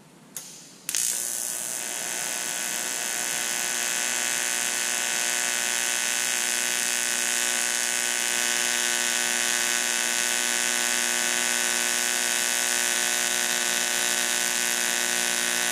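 AC TIG welding arc from a Lincoln Electric Aspect 230 set to a 60 Hz AC frequency, running a bead on cast aluminum: a short crackle as the arc strikes about half a second in, then a steady buzz.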